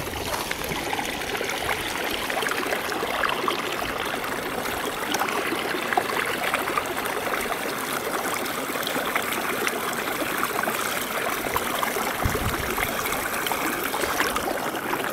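Shallow creek water running and trickling steadily over a beaver dam.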